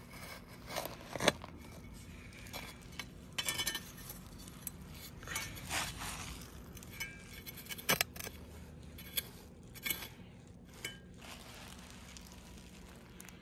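Metal hand trowel scraping and scooping soil, clinking now and then against the concrete curb, in irregular scrapes and knocks, the sharpest about a second in and twice more near the end.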